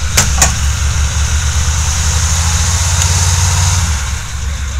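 Humvee's V8 diesel engine running hard under load while one Humvee pulls another out of deep water on a tow strap, easing off about four seconds in. Two sharp knocks come just after the start.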